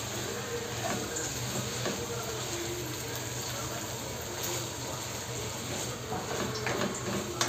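Wooden spatula stirring chopped vegetables and chicken through a cream sauce in a nonstick pan, with soft scrapes and taps over a steady cooking hiss.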